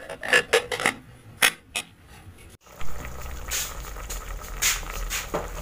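Metal clanks and knocks of an aluminium pressure cooker's lid being unlocked and lifted off. Then a steady hiss from the open pot of pressure-cooked beef on the gas stove.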